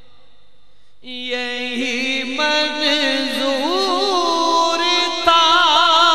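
A male naat reciter's voice singing a long wordless melismatic phrase. It starts about a second in on a held note, after a faint steady tone, then breaks into wavering, ornamented turns.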